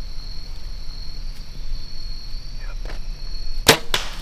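A bow shot at close range: one sharp crack of the bow firing about three and a half seconds in, followed a moment later by a second, fainter snap. A steady high insect drone runs underneath.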